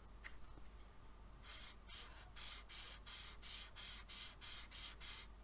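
Brush-marker tip scribbling back and forth on paper, a soft rhythmic scratching of about three strokes a second that starts about a second and a half in.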